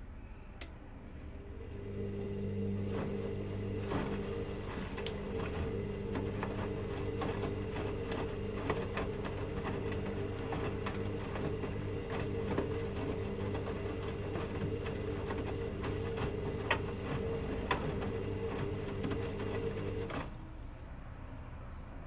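Hoover Dynamic Next washing machine's drum motor turning the drum in the main wash of a 40°C cottons cycle: a steady hum with scattered knocks from the tumbling wet load. It starts about two seconds in and stops abruptly near the end, as the drum pauses between turns.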